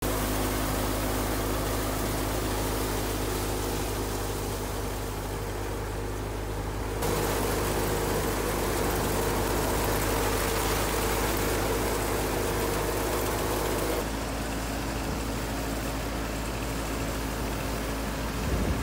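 Tractor engine running steadily while powering a wheat thresher, with the thresher's steady rushing hiss over the engine hum. The sound changes abruptly about seven seconds in, growing louder, and again about fourteen seconds in, dropping back.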